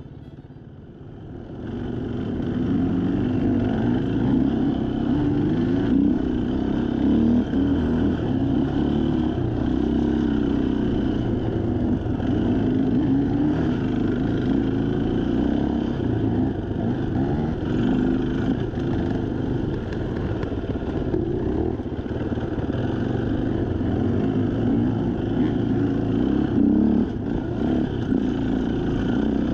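Off-road dirt bike engine running under changing throttle on a trail ride, heard from the rider's own bike, its note rising and falling. It fades in about two seconds in.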